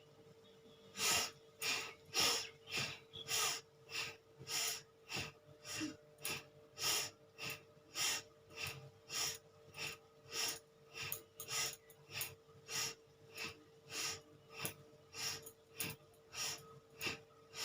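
Bhastrika pranayama (bellows breath) at its fastest pace: rapid, forceful breaths in and out through the nose, in an even rhythm of about two strokes a second, starting about a second in.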